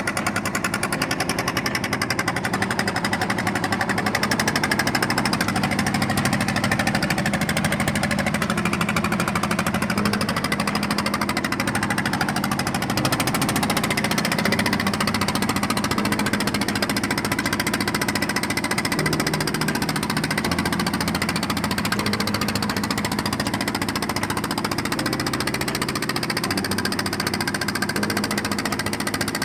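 A small fishing boat's engine running steadily under way, a fast, even knocking beat.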